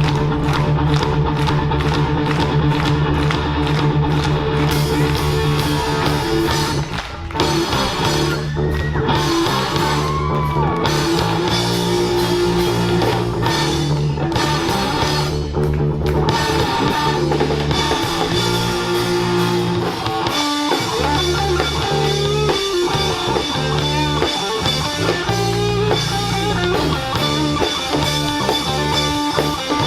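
Live rock band playing: electric guitar, bass guitar and drum kit, with a short break about seven seconds in.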